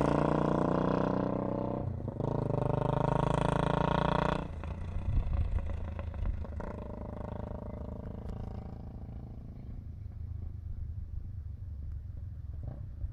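Honda CB300R single-cylinder engine through an aftermarket exhaust tip, revved high with a brief dip about two seconds in, then dropping back about four seconds in to an uneven idle with a few sharp pops.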